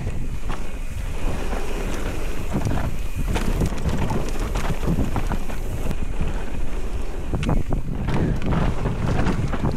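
Wind buffeting the microphone of a mountain bike riding fast down a rough bike-park trail, with a steady low rumble and frequent short clacks and rattles from the bike over the bumpy ground.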